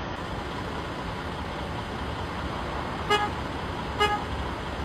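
Two short, high toots like a horn, about a second apart, over a steady rushing background noise.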